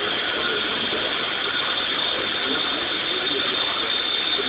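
CNC lathe making its finishing cut, the tool turning a metal part down to diameter: a steady machine noise with a thin high whine over it.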